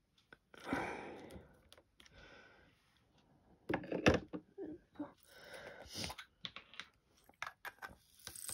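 Diamond painting supplies being handled on a light pad: the plastic release film rustles, with clusters of small sharp clicks and taps, the loudest about four seconds in and more near the end.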